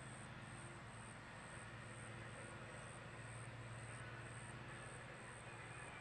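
Faint, steady hum of a distant lawn mower engine, with a short high chirp repeating about two to three times a second.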